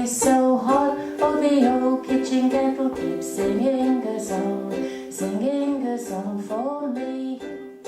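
A woman singing the closing line of a music-hall comedy song, accompanied by a strummed ukulele; the song ends shortly before the end.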